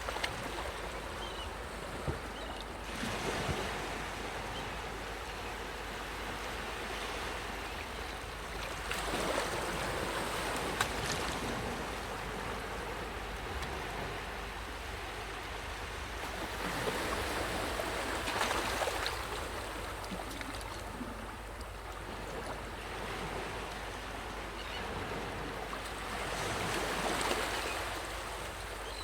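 Sea waves breaking on a beach, the surf swelling and falling back about every seven to eight seconds, four times in all.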